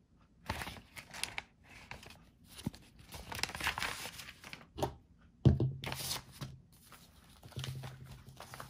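Paper rustling and tearing as a mail envelope is opened and the paperwork inside is handled, in a series of irregular rustles. A sharp knock about halfway through is the loudest sound.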